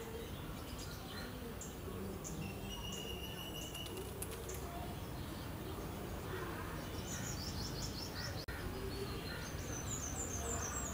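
Faint bird chirps over a steady background hum: short high notes in quick runs, a few in the middle and again near the end.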